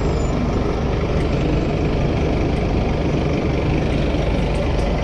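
Steady rumble of city street traffic, with a heavy vehicle's engine idling close by.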